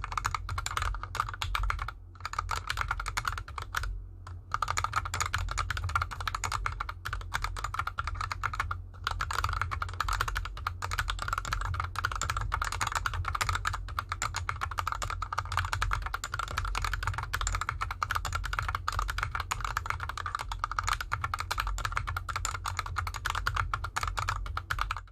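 Continuous fast typing on a GK64X mechanical keyboard with lubed Gateron Yellow linear switches and DSA keycaps, the keyboard resting on a desk mat over an artificial grass mat. A dense stream of keystroke clacks, broken by short pauses about 2, 4 and 9 seconds in.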